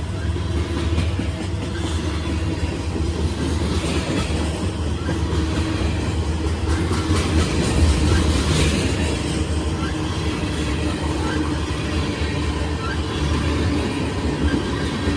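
Freight train of covered hopper and tank cars passing close at speed: a steady rumble of steel wheels on rail, with faint repeated clicks as the wheels cross rail joints.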